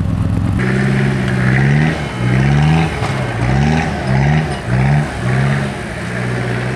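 Off-road trial truck's engine revving in short bursts again and again while crawling over rock, each rev climbing in pitch and dropping back. A steady engine drone comes before the first rev.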